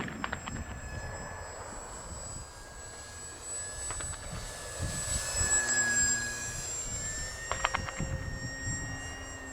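Brushless electric motor and propeller of a small RC model airplane whining steadily as it makes a low pass, growing louder to a peak about halfway through and then fading.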